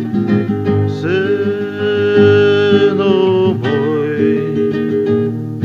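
Acoustic guitar accompaniment under a man's voice singing two long held notes. The first swoops up into pitch about a second in, and the second is held until near the end.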